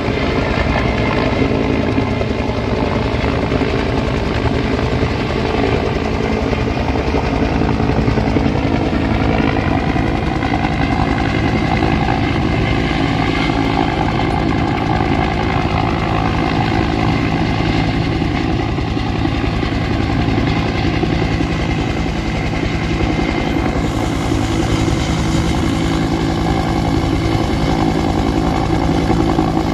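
Bell UH-1 'Huey'-type helicopter hovering low, its two-bladed main rotor and turbine engine running steadily at an even level.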